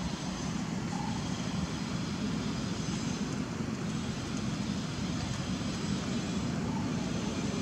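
Steady low rumble of distant engine noise.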